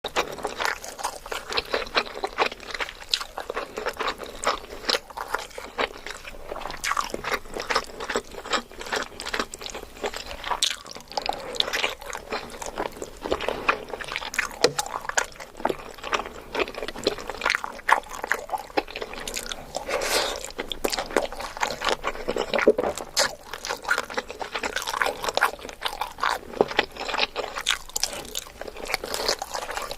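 Close-miked eating sounds of a person chewing big bites of spicy catfish curry: wet, sticky mouth sounds and crunching in a dense run of quick clicks.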